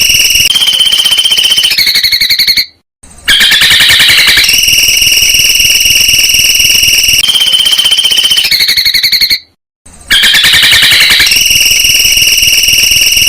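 Songbird song: loud, high, rapid trills, each held on one pitch and stepping up in pitch in turn, with short breaks about three seconds and ten seconds in. The same phrase repeats about every seven seconds, like a looped training recording.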